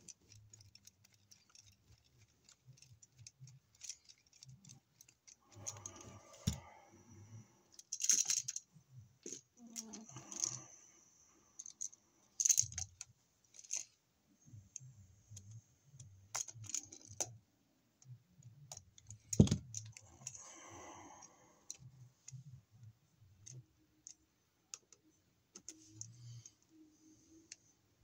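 Scattered small metallic clicks, taps and scrapes of hand tools working a wall receptacle: a screwdriver turning the terminal screws and pliers bending the copper wire into a loop. One sharper click stands out about two-thirds of the way through.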